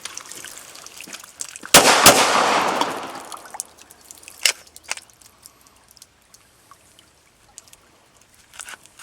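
Two sharp gunshots about a third of a second apart from a Glock pistol that has been soaked in water, each followed by a rushing wash of noise that fades over about a second and a half. A few light clicks follow.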